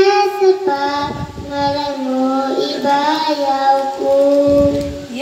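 A young girl singing a song into a corded microphone, holding long notes.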